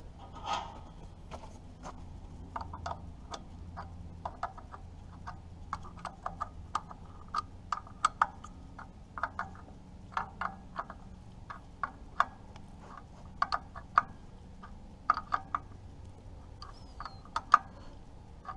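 Ratcheting wrench clicking in short, irregular runs of sharp clicks while the carburetor mounting nuts on a Farmall H are tightened.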